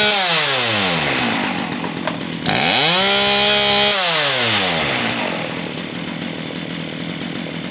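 Poulan Pro PP4018 chainsaw's two-stroke engine revved with the throttle trigger. It falls back from one rev at the start, revs up again about two and a half seconds in, holds briefly, drops back to idle and then idles steadily. These are test revs after its high-speed carburetor screw was turned richer to cure a lean bog.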